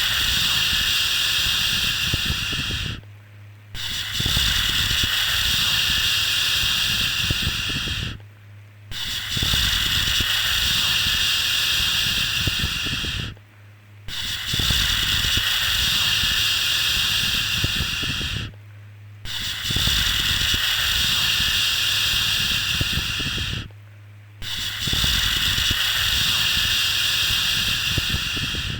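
Repeated long 'shhh' shushing sounds for soothing a baby to sleep, each lasting about four and a half seconds with a short pause of under a second between them, in a steady rhythm.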